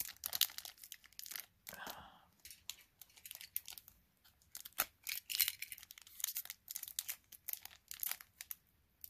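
A foil trading-card pack being crinkled and torn at with the fingers: irregular crackles and short rips as the wrapper resists opening.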